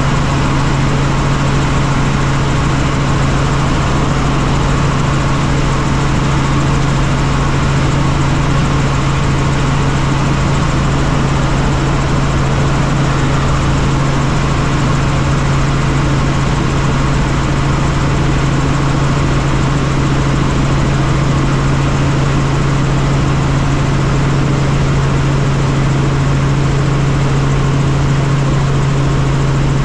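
Helicopter in flight: a loud, steady drone of rotor and turbine with a strong constant low hum that holds level throughout.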